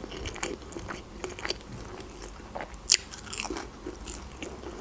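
Close-miked chewing and biting of a breaded chicken McNugget: many small crunches of the fried coating, with one sharper, louder crunch about three seconds in.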